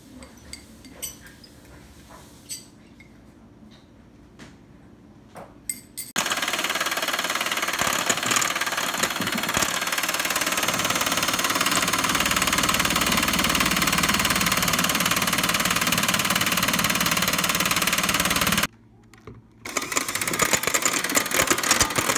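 A few light taps of a spoon against a glass bowl, then an electric mixer whipping egg whites into meringue, running steadily. It stops for about a second near the end and then runs again.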